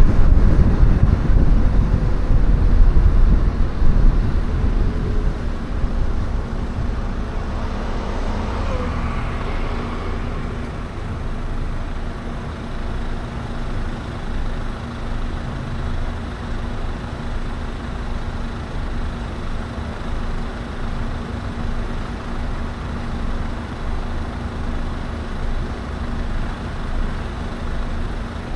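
Car road noise while driving in city traffic: engine and tyre rumble, loudest in the first few seconds, then easing to a steadier, quieter drone with a faint steady hum.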